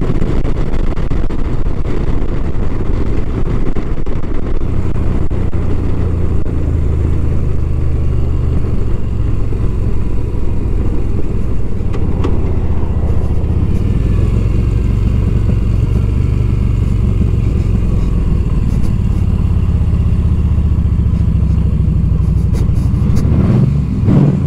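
Yamaha V Star 950's air-cooled V-twin running steadily at highway cruising speed, mixed with a constant rush of wind on the helmet microphone.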